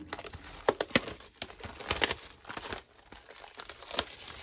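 Clear plastic shrink wrap crinkling and tearing in irregular crackles as it is stripped off a cardboard trading-card hobby box.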